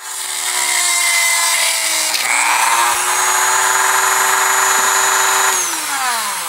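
Small handheld rotary tool driving a drill bit into a plastic multimeter case: a high motor whine that sags slightly under load, rises again about two seconds in, runs steady, then falls in pitch as the tool is switched off and spins down near the end.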